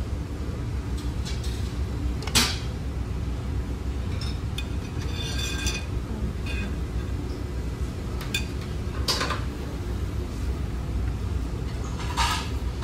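Metal serving spoons clinking against a serving pot and a stainless steel buffet tray: a few short sharp clinks, the loudest about two seconds in, others near the middle and the end, over a steady low hum.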